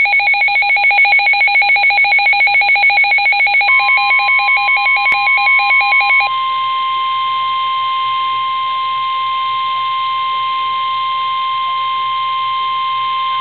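Emergency Alert System alert tones: a fast-pulsing, warbling two-tone beeping, then a steady single-pitch alarm tone. The steady tone comes in about four seconds in and carries on alone after about six seconds; it is the NWS 1050 Hz warning alarm tone that heralds a weather warning.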